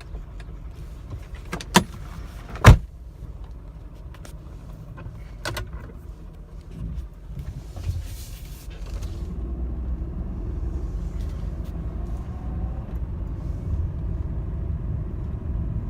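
Mercedes-Benz W124 engine idling low, heard inside the cabin, with two sharp clunks a couple of seconds in and a few lighter clicks after. From about ten seconds in, the engine and road noise build into a steady rumble as the car pulls away and drives, running smoothly.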